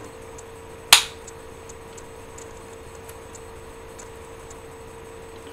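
One sharp crack about a second in, over a steady hum and faint irregular ticking. The owner takes the background noise for his laptop's fan.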